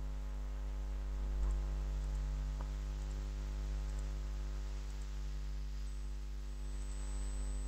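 Steady electrical mains hum with a faint hiss, picked up by the recording microphone. A couple of faint mouse clicks sound about one and a half and two and a half seconds in.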